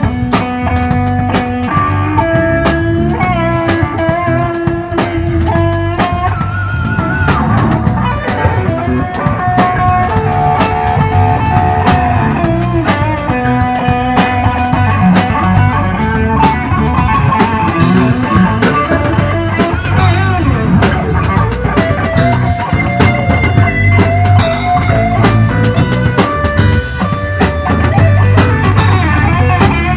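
Live rock band playing an instrumental passage: electric guitar with long held notes over a drum kit.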